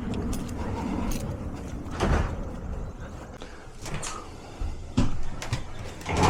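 A few separate knocks and thumps, like a door or hard objects being handled, with the loudest near the end.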